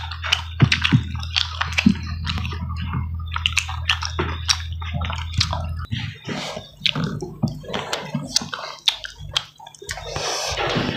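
Close-up wet eating sounds: chewing, lip smacking and fingers squishing rice and saucy chicken, many short clicks and smacks. A low steady hum stops about halfway through.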